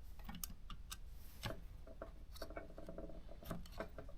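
Faint, scattered clicks and ticks from the mechanism of a small Consul portable typewriter being handled, with a short run of quick ticks a little past the middle.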